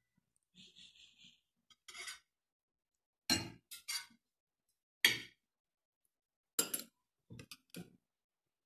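Metal spoons, forks and a ladle clinking against ceramic plates and bowls during a meal: a string of short, sharp clinks, the loudest about three and five seconds in.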